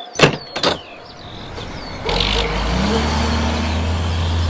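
Two sharp plastic clicks as the toy livestock trailer's gate is snapped shut, then from about two seconds in a steady truck engine running sound, low and even.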